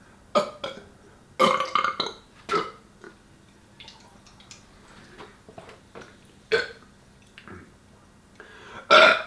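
A man burping again and again after chugging carbonated seltzer water: short separate burps with quiet gaps, a longer ragged one about a second and a half in and a loud one near the end.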